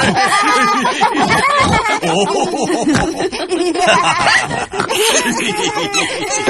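Several cartoon characters laughing together, in overlapping chuckles and giggles.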